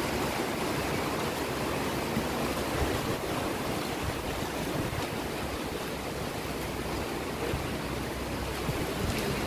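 Steady rushing wind noise on the microphone, even and unbroken.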